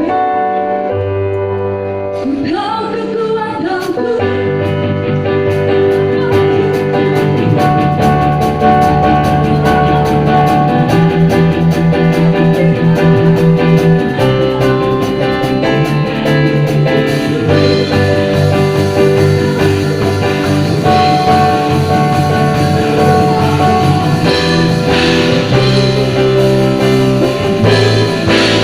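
A church worship band playing held chords over a bass line, with a steady cymbal-and-drum beat coming in about four seconds in.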